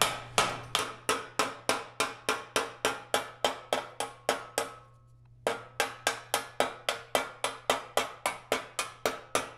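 Steady hammer blows on a copper sheet held over a stake, about four strikes a second, each with a short metallic ring: the copper being dished and shaped into a mask. The hammering stops briefly a little under five seconds in, then carries on at the same pace.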